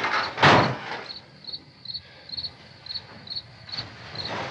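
Crickets chirping steadily, about two and a half chirps a second. About half a second in, a brief loud scrape as heavy wooden furniture is shifted.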